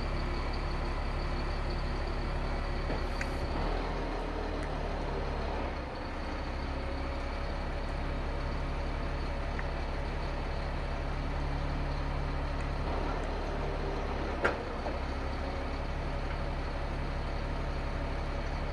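Caterpillar C7 diesel engine of a Kenworth T300 running steadily while it drives the PTO hydraulic crane. The sound changes around 4 to 6 seconds in, with a brief dip in loudness, and again around 13 to 15 seconds in, as crane functions come on and off. A sharp click comes about 14 seconds in.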